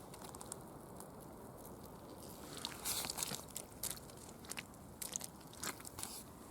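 Footsteps crunching on a forest path, faint at first and then a step about every half second from about two and a half seconds in.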